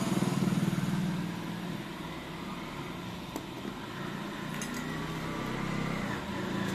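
Steady low mechanical hum, with a couple of faint clicks about three and a half and four and a half seconds in.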